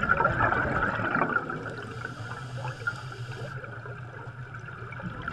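Underwater bubbling: a steady rush and gurgle of air bubbles rising through water.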